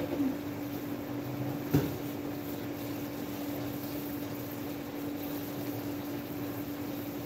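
A steady hum, with one sharp click just under two seconds in.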